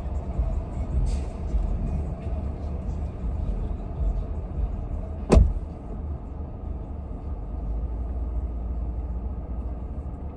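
Steady low rumble of a car idling. About five seconds in there is a single sharp thump, the loudest sound here, after which the rumble is slightly quieter.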